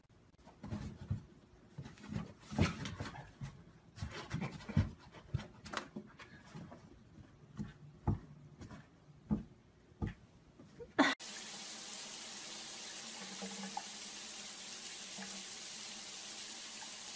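Light taps and knocks on a cardboard box as a cat paws at a toy poking out of a hole in it; about eleven seconds in, this cuts to a steady hiss of water running from a shower into a bathtub.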